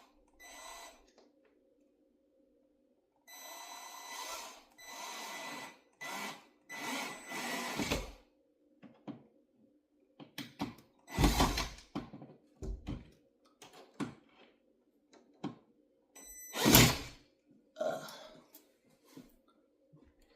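Cordless drill running in four short bursts with a motor whine, drilling and driving screws for a blind bracket, followed by scattered knocks and clunks of handling the bracket and tools.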